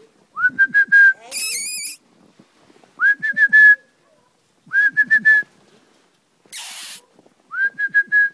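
Recall whistling to call gundogs: four short runs of rapid pips at one steady pitch, each starting with a quick upward slide.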